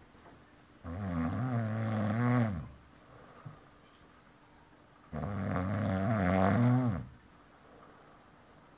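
A person snoring loudly: two long snores, each just under two seconds, about four seconds apart, with quiet between them.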